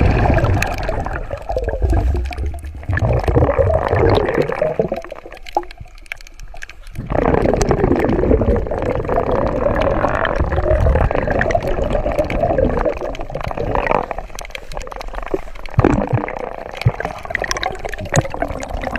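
Underwater water noise: bubbling and gurgling water around the camera as divers swim. It comes in two long loud stretches with a quieter lull between them and a quieter spell near the end.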